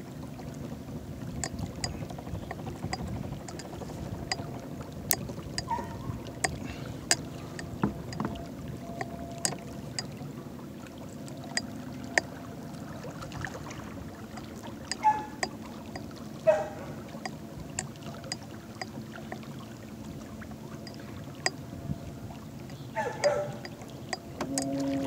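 Electric trolling motor pushing a kayak: a low steady hum with water noise, scattered light clicks and knocks, and a few short falling squeaks. About a second before the end a louder, steadier hum sets in.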